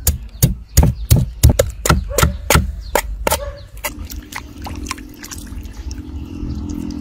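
A kitchen knife scraping scales off a large fish head on a wooden cutting board, in sharp strokes about three a second that stop about three and a half seconds in. Then water sloshing as the fish head is rubbed clean by hand in a basin.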